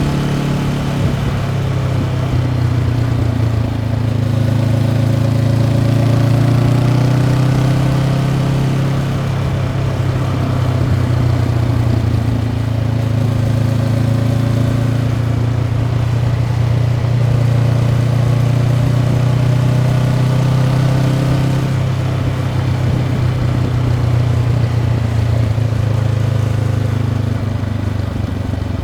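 Honda CB500X parallel-twin engine through its stock exhaust, running continuously while the bike is ridden, its pitch drifting up and down gently with the throttle.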